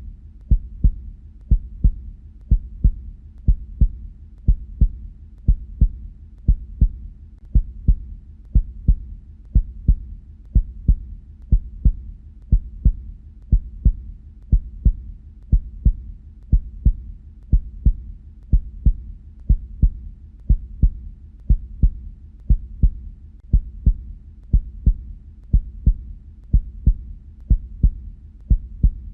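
Human heartbeat: regular paired 'lub-dub' knocks in a steady, even rhythm. These are the sounds of the heart valves closing.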